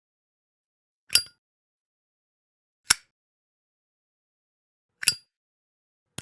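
Zippo lighter's metal lid being flicked open and snapped shut, four sharp metallic clicks spaced one to two seconds apart, some with a brief bright ring.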